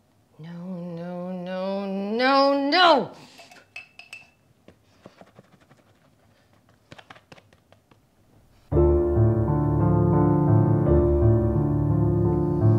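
Dramatic film score. A single wavering tone rises for about three seconds and swoops off, then comes a few seconds of low level with scattered faint taps. About nine seconds in, loud, dense low strings come in.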